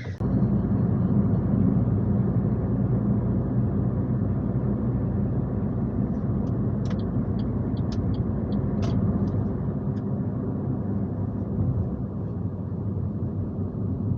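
Steady car engine and road rumble heard from inside a moving car, with a few faint light ticks about halfway through.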